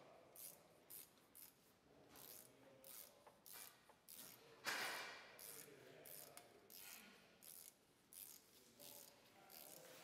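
Faint metal-on-metal clicks and scrapes, about two a second, as a bicycle pedal is threaded and tightened into the crank arm with a hand tool; one louder clack about halfway through.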